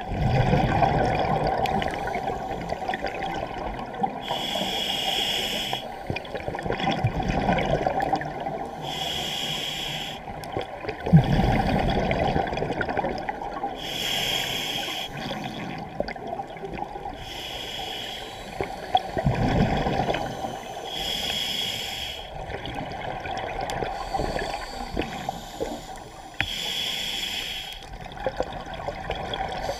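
Scuba diver breathing through a regulator underwater, heard in a muffled way. The hiss of each breath alternates with the bubbling rush of the exhale, about six breaths at an even pace of one every four to five seconds.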